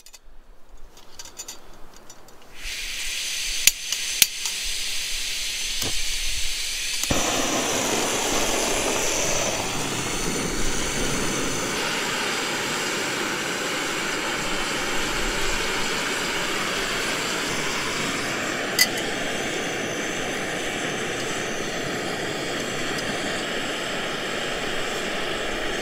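Backpacking gas canister stove being lit: a thin gas hiss starts, two sharp igniter clicks follow, and then the burner settles into a steady rushing burn.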